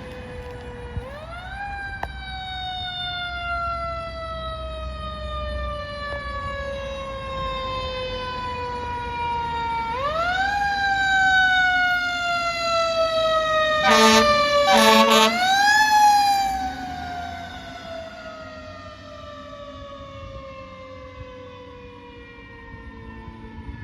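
Fire truck siren, three times spun up in a quick rise and left to wind down slowly over several seconds, with a fourth rise starting at the very end. Partway through, two short horn blasts about a second apart are the loudest sound.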